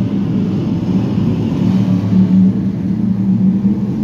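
BriSCA F1 stock cars racing round a shale oval track, their V8 engines making a loud, steady drone.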